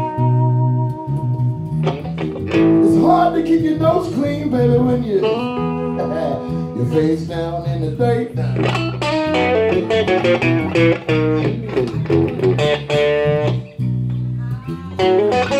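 Electric guitar playing blues-rock lead lines over an electric bass. The guitar holds one long note at the start, then plays quick runs with bent notes.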